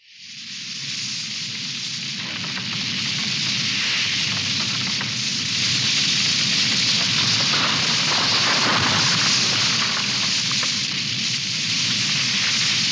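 Radio-drama sound effect of a fire burning, set alight to burn bones: it fades in and builds over the first several seconds, then holds at a steady level.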